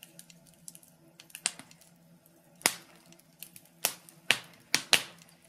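Scattered sharp clicks and pops at irregular intervals over a faint steady low hum, about half a dozen of them loud.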